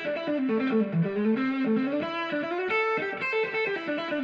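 Intro music: an electric guitar playing a melodic line, the notes changing several times a second.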